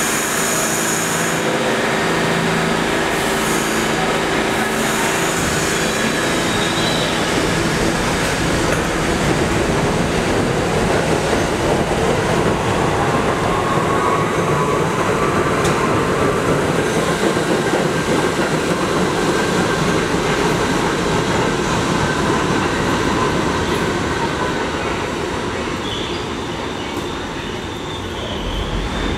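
R68 New York City subway train pulling out of an underground station: rail and wheel noise throughout, with the traction motors' whine rising in pitch as it gathers speed. The noise falls away a few seconds before the end as the train leaves.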